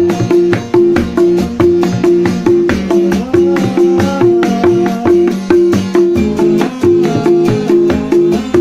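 Dangdut music played live: kendang hand drums keep a steady driving beat of about three strokes a second, with a repeating low note and a melody line played over it.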